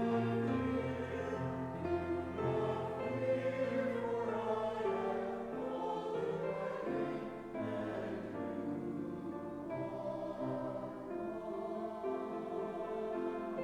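Choir singing in a church service, holding sustained chords with accompaniment.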